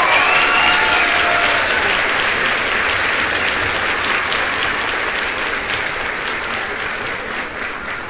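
Crowd applause with a few cheers in the first second or two, gradually fading out.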